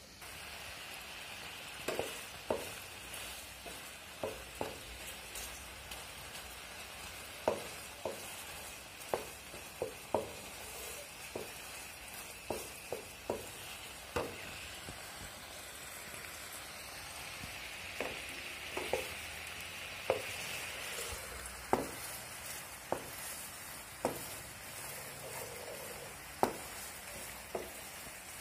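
Star gooseberries simmering in a thickening sugar-and-chilli syrup in a non-stick frying pan, sizzling steadily as the syrup reduces. A wooden spoon stirs them, giving frequent sharp, irregular taps and scrapes against the pan.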